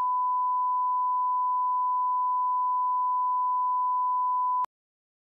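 Television colour-bars test tone: one steady pure beep that cuts off suddenly about four and a half seconds in.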